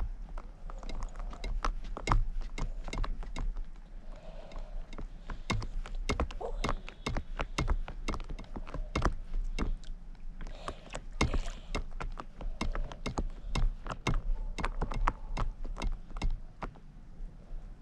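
Water lapping and slapping against an inflatable paddleboard close to the microphone, an irregular run of sharp little knocks as the board rocks.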